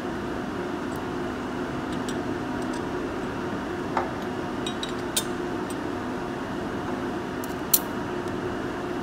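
Steady background hum of a machine shop, with a few light metallic clicks and taps as hand tools touch the lathe's four-jaw chuck; the sharpest click comes near the end.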